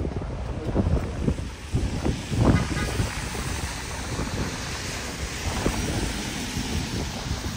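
Wind buffeting the microphone in irregular low rumbles, over a steady hiss.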